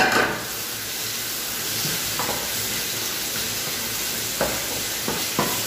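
Tomato-and-spice masala sizzling steadily in a frying pan while it is stirred with a wooden spatula, with a few soft knocks of the spatula against the pan.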